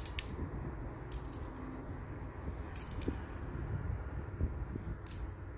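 Handling noise from a fishing rod turned in the hand close to the microphone: four brief bursts of soft clicking and rustling over a steady low rumble.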